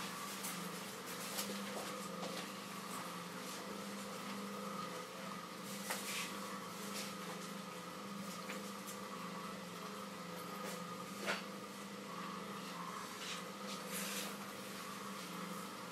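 Electric potter's wheel motor humming steadily as a jar is thrown, with a few short clicks and taps of hands on the wet clay; the sharpest click comes about eleven seconds in.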